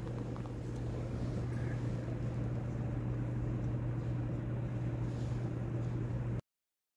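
Steady low hum and background rumble of a large, quiet church interior, cutting off abruptly to silence near the end.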